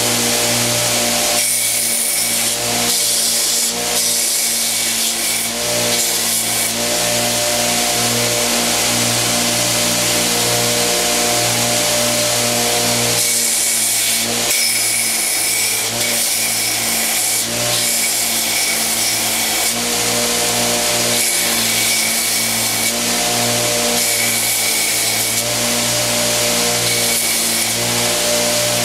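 Homemade 2x72 belt grinder running steadily with a motor hum. The belt hisses and rasps in repeated stretches of several seconds as a knife handle is pressed against it to profile it.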